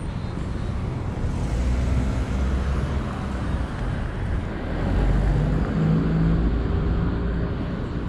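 Street traffic noise: cars running on the road at low speed, a steady mix of engine and tyre noise that grows a little louder about five seconds in.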